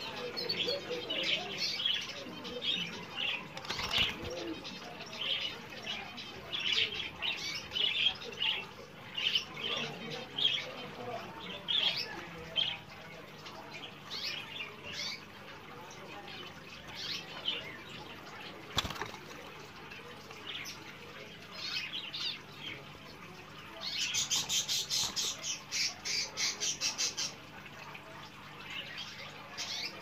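Caged canary chirping in short repeated calls, breaking into a fast rolling trill for a few seconds near the end. Wing flutters and a couple of sharp knocks as it hops about its perches.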